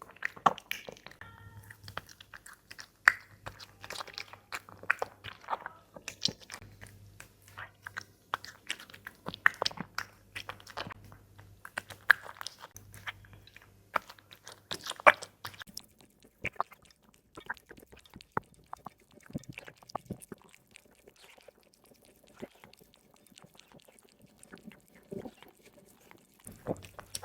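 A cat chewing and crunching food close up, a quick run of sharp crunchy clicks that thins out after about the middle.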